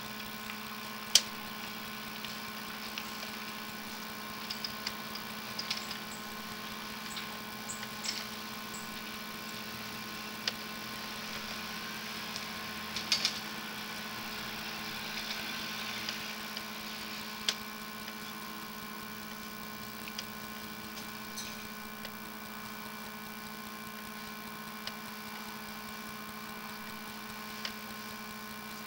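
Steady electrical hum made of several fixed tones, from a sewer inspection camera rig recording as its camera head is pushed along a drain pipe. Scattered sharp clicks and ticks break in irregularly, the loudest a little over a second in and again around the middle.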